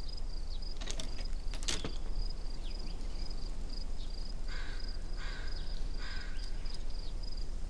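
Crickets chirping steadily in the background, a rapid run of short high chirps, with a few soft rustles now and then.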